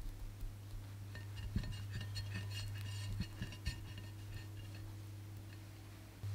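Spatula spreading thick chocolate ganache over a chocolate sponge layer: soft smearing with a scatter of small ticks and clicks, busiest in the middle, and a few soft knocks. A steady low electrical hum runs underneath.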